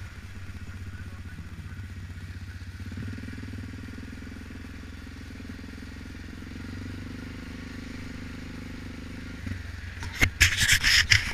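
2006 Suzuki KingQuad 700 ATV's single-cylinder engine running steadily under way, its note firming about three seconds in and easing off shortly before the end. In the last second, loud knocks and rustling close to the microphone.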